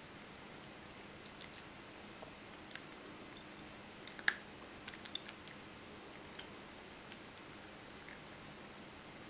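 Ragdoll cat crunching dry kibble from a stainless steel bowl: scattered short crisp crunches, the loudest about four seconds in with a quick cluster a second later.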